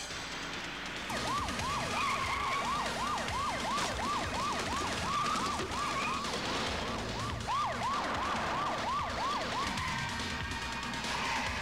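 Police car siren in fast yelp mode, about three swoops a second, starting about a second in and breaking off briefly near the end.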